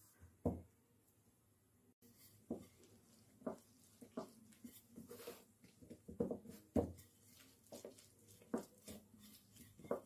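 Hands patting and pressing a stuffed paratha flat on a steel plate: a string of soft, irregular thumps, about a dozen, some louder than others.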